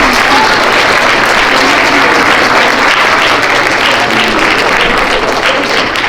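An audience applauding steadily, the clapping thinning out into separate claps near the end.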